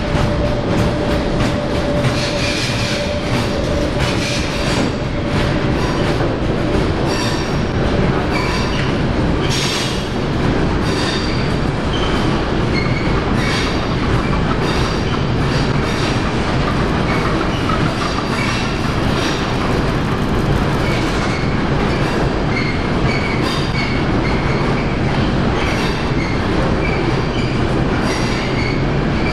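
A train running past on station tracks, its wheels clacking over rail joints and points, with repeated high-pitched wheel squeal. The noise stays loud and even throughout, and a steady hum sounds in the first few seconds.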